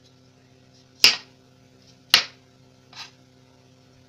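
Kitchen knife slicing peel off a raw taro corm: three short, sharp cuts about a second apart, the last one fainter.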